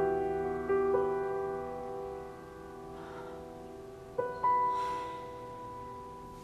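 Slow piano music: a few notes struck and left to ring and fade, with a new pair of notes about four seconds in.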